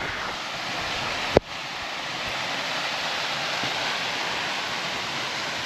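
Waterfall rushing steadily, with a single sharp knock about a second and a half in.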